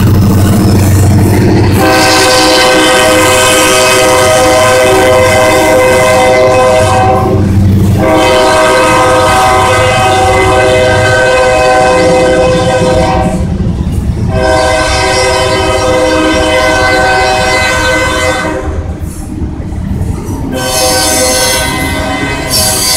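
Kansas City Southern de México freight train rolling past, its cars rumbling by. Over this a locomotive air horn sounds a chord in four long blasts separated by short breaks.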